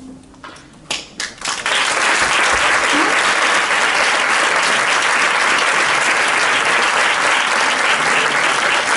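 Audience applause. A few scattered claps come about a second in, then full, dense applause starts just under two seconds in and carries on steadily.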